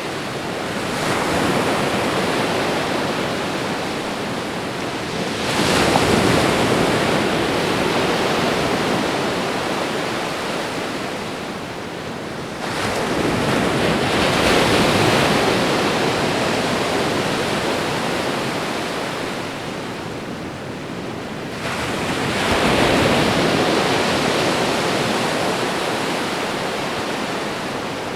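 Ocean waves washing onto a shore: a steady rushing wash that swells into four breaking surges several seconds apart, each ebbing away before the next.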